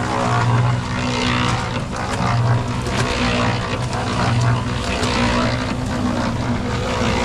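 An engine running steadily, its low hum swelling and easing every second or two over a wash of mechanical noise.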